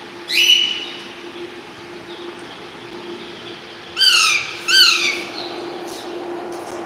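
Parrot calling: three loud squawking calls, one about half a second in and two in quick succession about four seconds in, each sliding down in pitch.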